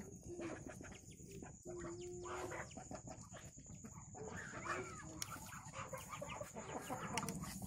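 Chickens clucking quietly while feeding, a few short calls scattered through.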